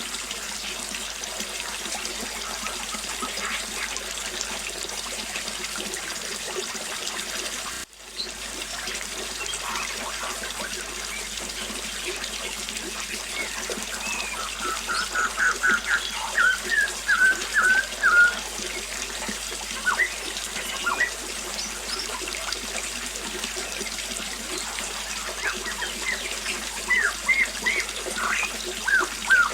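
Small waterfall splashing steadily, with birds chirping over it: a quick run of short chirps about halfway through and more chirps near the end. The water cuts out for an instant about eight seconds in.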